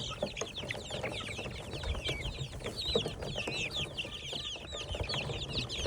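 A flock of chickens calling: many short, high, falling peeps overlapping one another without a break, with a few lower clucks and a low rumble underneath.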